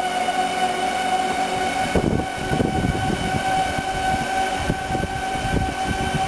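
12-volt battery-powered lift motor running with a steady high whine as it raises the long false-floor panel of a hidden trailer compartment. About two seconds in, a rough low rumble from the lifting mechanism joins the whine.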